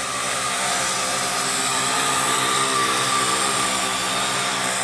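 Vivitar Skyview quadcopter hovering, its four propeller motors whirring steadily at a constant pitch.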